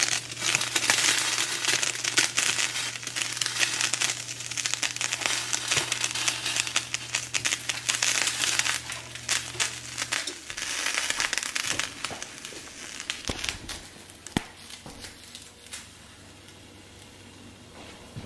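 Breaded fish fillets frying in shallow oil in a nonstick skillet: a dense sizzle full of crackling pops, which fades to a faint hiss from about twelve seconds in.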